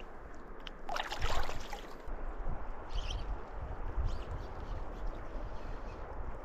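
Water splashing loudly about a second in as a fish is let go from the hand in shallow river water, then the river's steady flowing burble with a few small splashes.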